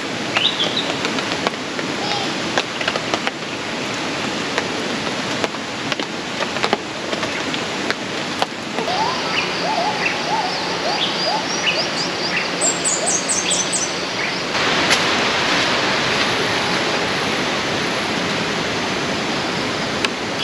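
Outdoor ambience: a steady rushing noise with short bird chirps over it, busiest in the middle. The noise changes abruptly twice, about 9 and 15 seconds in.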